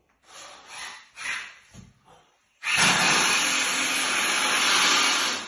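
A few soft rustles, then a loud steady hiss that starts suddenly about two and a half seconds in and stops just before the end.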